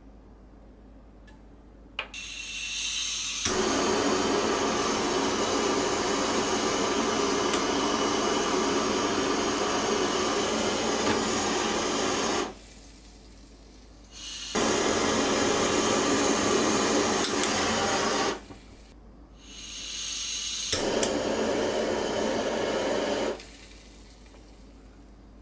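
Handheld kitchen torch firing in three bursts of steady hissing flame: a long one of about ten seconds, then two shorter ones. The first and last begin with an ignition click. The flame is caramelizing the sugar on top of a crème brûlée.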